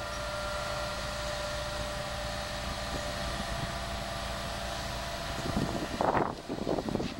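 Diesel construction machinery, a wheeled excavator among it, running steadily: a low hum with a held tone. About six seconds in, a louder ragged clatter and scrape comes in, typical of the excavator's bucket working in sand.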